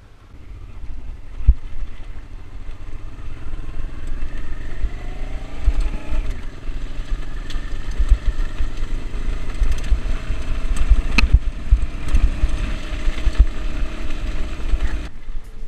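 Motorcycle engine running while riding over a gravel road, its pitch rising a few seconds in as it speeds up, with wind on the microphone and a few sharp knocks from bumps.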